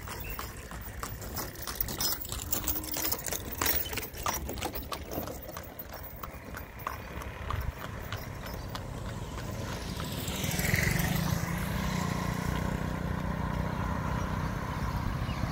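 Hoof clops and wooden knocking of an animal-drawn cart going by on the road. From about ten seconds in, these give way to the steady, louder hum of a small motorcycle engine as a motorcycle approaches.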